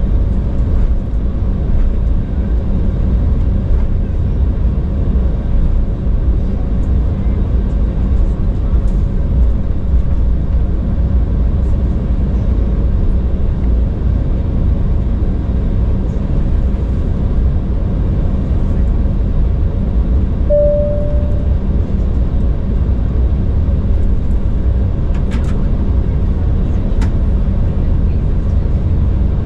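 Steady low rumble of cabin noise inside an Embraer E195 airliner on the ground before take-off. A brief single clear tone sounds about two-thirds of the way through, and a couple of light clicks come near the end.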